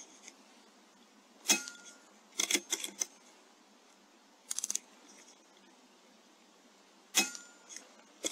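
Two shots from an Airmaks Krait L .22 air rifle about six seconds apart, each a sharp crack followed within a second by a few clicks of the action being cycled to load the next pellet. A quick run of small clicks comes between the shots.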